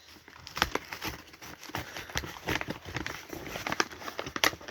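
Mail packaging being handled and opened by hand: a steady run of irregular crinkles, rustles and small taps.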